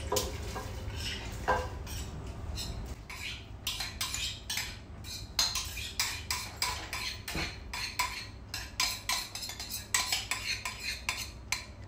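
A metal spoon scraping and knocking against a steel bowl, scooping wet wheat out into a pressure cooker. It comes in quick, short strokes, several a second, from about three seconds in until just before the end.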